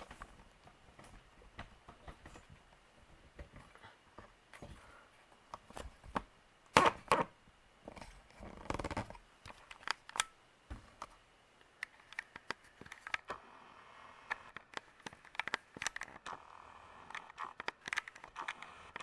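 Harbor Breeze Troches ceiling fan running on its low speed with a faint steady whine, under many irregular sharp clicks, cracks and rustles; the loudest is a cluster of cracks about seven seconds in, followed by a longer rustle about nine seconds in.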